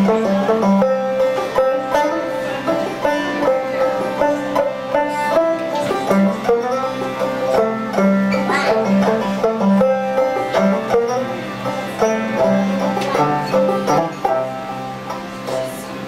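A banjo picking a folk tune over sustained harmonium chords.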